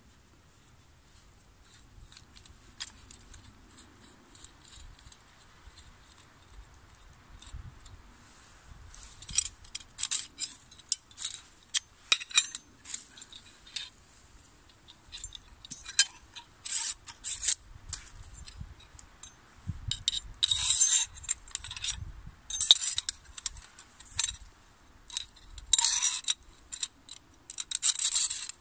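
All-metal collapsible buck saw being taken apart by hand: its metal frame tubes and saw blade clink and scrape against each other as the parts are pulled apart. The sounds are sparse and faint at first, then come thicker and louder from about nine seconds in as a run of sharp clinks and scrapes.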